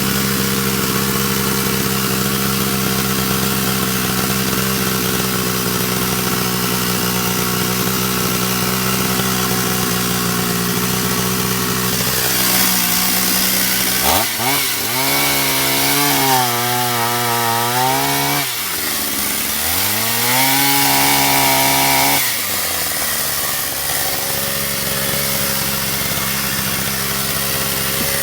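Stihl 031AV two-stroke chainsaw idling steadily, then revved up to full speed twice, the pitch wavering and dipping as it cuts wood, and dropping back to idle. It keeps running without stalling on its new carburetor.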